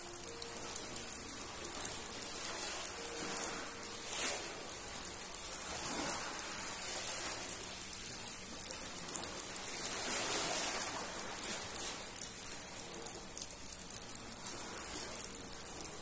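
Rain pattering steadily, with small sea waves washing onto a pebble shore every few seconds.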